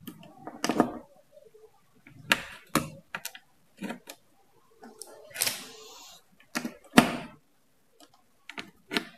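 Banana-plug patch cords being pushed into the sockets of a trainer-kit panel and handled against it: about ten irregular clicks and knocks.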